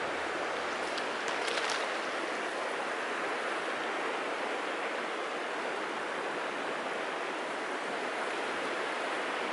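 River water flowing steadily, an even hiss with little low rumble.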